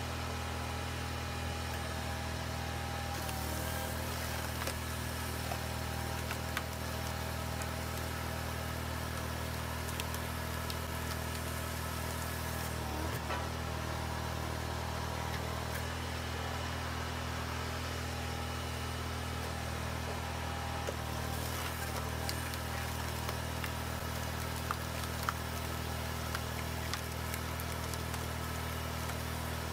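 Engine of a firewood processor running at a steady speed, with a few faint knocks.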